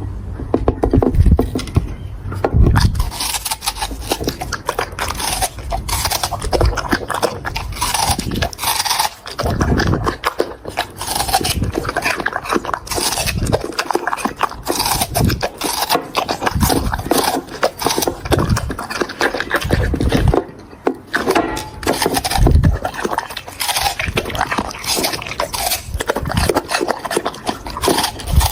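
A dog chewing and crunching melon, with irregular bites and chomps coming thick and fast throughout.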